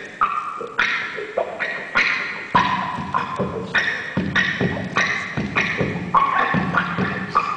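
Electric guitar played through effects pedals and a looper, layering percussive knocks on the instrument with short ringing notes into a steady repeating rhythm. A low, drum-like pulse joins the loop about two and a half seconds in.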